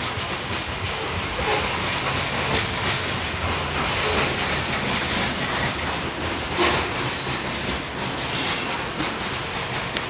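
Freight train cars rolling past, their wheels clicking over rail joints with a steady rumble. There is a sharp clank about two-thirds of the way through.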